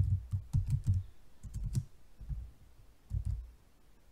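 Typing on a computer keyboard: a quick run of keystrokes, then a few scattered key presses.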